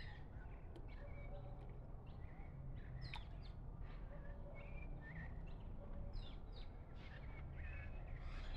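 Faint background of birds: scattered short chirps and quick whistled calls, over a low steady rumble.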